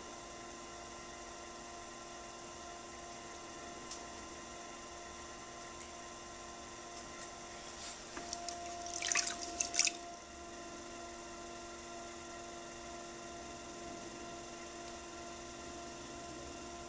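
Electric pottery wheel running with a steady motor hum. Brief wet splashing and dripping about eight to ten seconds in, as clay-covered hands work with water at the wheel.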